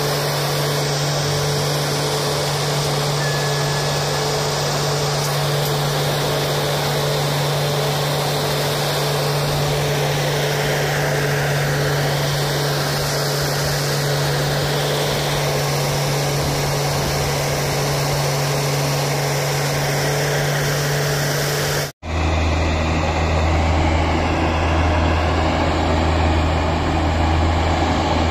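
Heavy engine of railway track machinery running steadily with an even low hum. About three-quarters of the way through it breaks off sharply and gives way to another engine running at a lower pitch.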